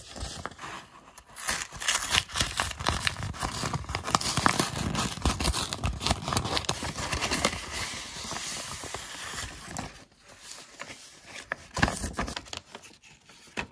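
A paper envelope being opened and its contents unwrapped by hand: irregular tearing, crinkling and rustling with small clicks, busiest in the middle and thinning out near the end.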